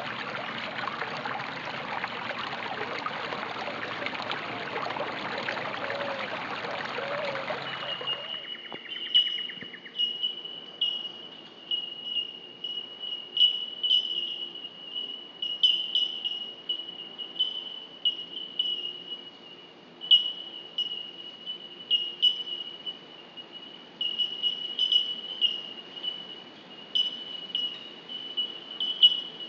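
Running water for about eight seconds, cutting off abruptly. Then a steady high-pitched insect trill holds one pitch, with irregular louder chirps over it.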